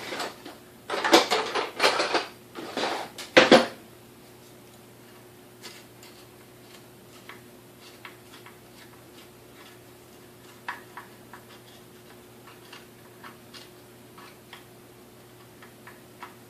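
Metal parts of a KitchenAid 3C stand mixer and hand tools clattering and scraping on a workbench for about four seconds as the mixer is taken apart, then only occasional light clicks and ticks as small parts are handled.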